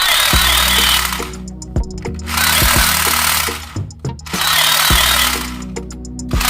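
Battery-powered toy gun firing in repeated buzzing, rattling bursts, each about a second long and roughly two seconds apart, over steady background music.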